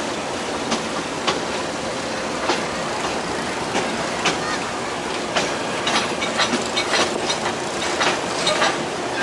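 Passenger train running, heard from aboard: a steady rolling rumble with sharp clacks of the wheels over the rail joints, coming more often in the second half.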